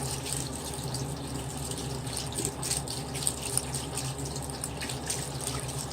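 Water running from a sink tap, with light splashing as a makeup sponge is rinsed and rubbed on a bar of soap under the stream.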